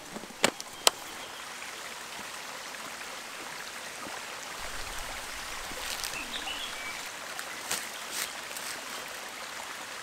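Steady rush of flowing stream water. Two sharp clicks about half a second and a second in come from handling a DSLR camera as its lens is changed.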